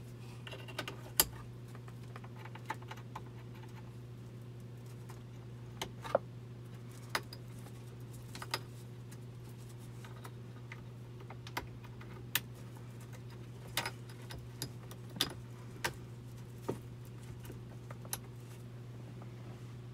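Plastic wiring-harness connectors being pushed into a car radio module behind the dash: scattered sharp clicks and small rattles of plastic and wiring, irregularly spaced, over a steady low hum.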